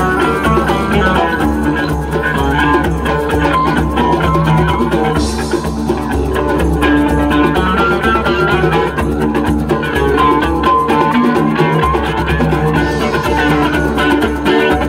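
Live didgeridoo band playing: a steady low didgeridoo drone under electric guitar, with djembe hand drum and cymbal strokes.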